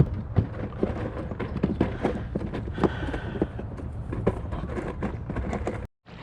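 Rapid, irregular clicks and knocks of fishing gear being handled in a kayak while a hooked fish is played, over a steady low rumble. The sound cuts out briefly near the end.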